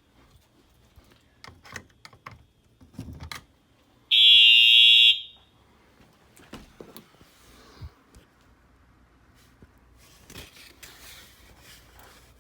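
Fire alarm horn sounding one loud blast of about a second, a harsh electronic tone with higher overtones, a little over four seconds in. A few small knocks and clicks come before it.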